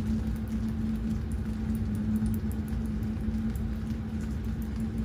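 Rain pattering in light, scattered drops over a steady low hum.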